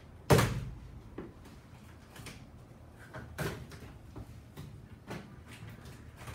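Large cardboard box being opened by hand at its top flaps: a sharp loud noise about a third of a second in, another smaller one about three and a half seconds in, and scattered knocks and rustles of the cardboard between.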